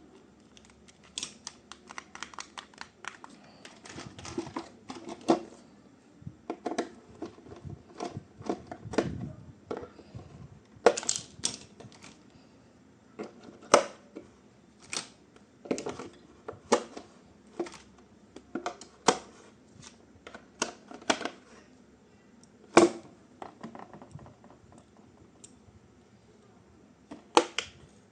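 Plastic toy parts and packaging being handled: irregular sharp clicks and taps with a little rustling, loudest as a single click about two-thirds of the way through.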